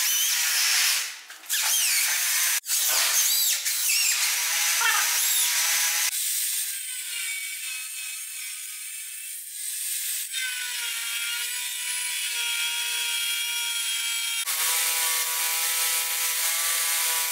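Corded electric drill boring into a hardwood stair tread, its whine bending in pitch under load and stopping briefly twice. About fourteen seconds in, an angle grinder starts grinding metal with a steady high whine.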